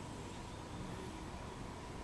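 Steady outdoor background hiss with a low rumble; no bird call stands out.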